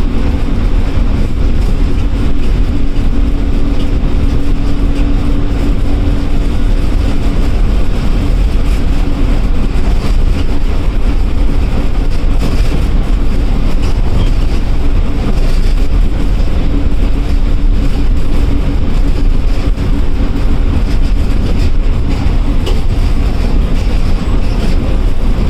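Loud interior noise of a KSRTC Sarige bus driving on the highway, heard from the front cabin: a steady engine drone with road rumble. A hum sits on top of it for the first several seconds, then fades.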